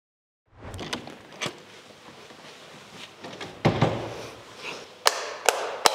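Quiet room noise broken by a few separate knocks and clicks: one about a second and a half in, a heavier dull thump a little past halfway, and a quick run of sharp clicks near the end.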